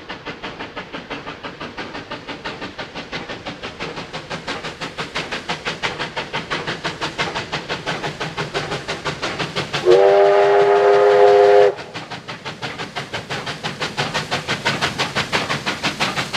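Steam locomotive R707, a Victorian Railways R class, working hard at speed: a rapid, even beat of exhaust chuffs. About ten seconds in, its chime steam whistle sounds one blast of nearly two seconds, several notes together.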